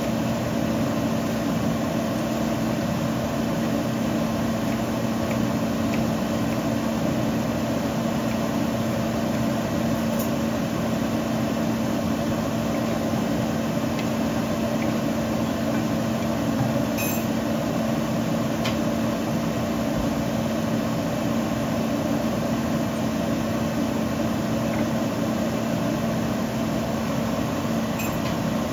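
Steady mechanical hum with a constant low tone, unchanging throughout, with a few faint clicks.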